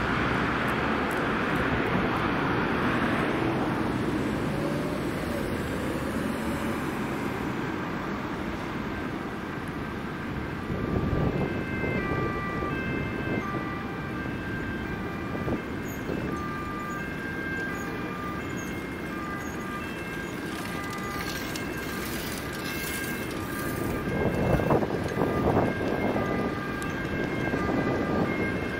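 Steady road traffic at a busy junction, with an approaching ambulance's two-tone siren coming in faintly about ten seconds in and continuing as it draws nearer; louder swells as vehicles pass.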